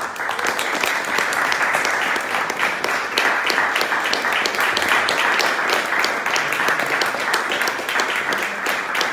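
A small group of people applauding, the clapping breaking out all at once and keeping up steadily.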